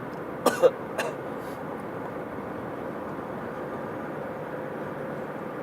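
A person's short, sharp sneeze-like outburst about half a second in, with a smaller one just after, part of a sneezing fit. Steady road noise of the moving car's cabin runs underneath.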